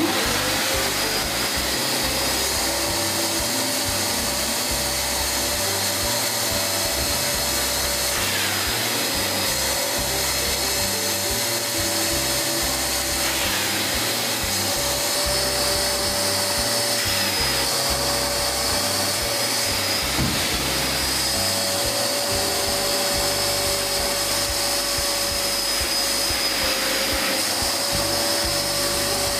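Eureka Forbes 20-litre wet-and-dry canister vacuum cleaner running steadily, its motor giving a constant whine, as the upholstery nozzle sucks along fabric sofa cushions.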